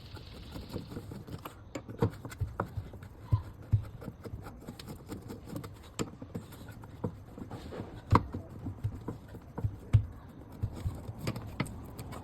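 Irregular clicks and knocks of tools and parts being handled, a few sharp ones louder than the rest.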